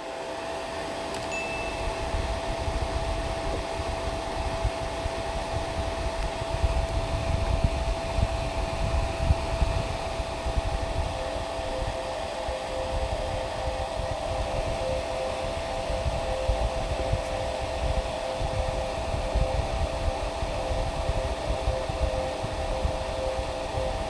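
Anvision 12 V brushless DC cooling fan on a MakeSkyBlue MPPT solar charge controller running steadily, a constant airy hiss with a steady whine, over an uneven low rumble.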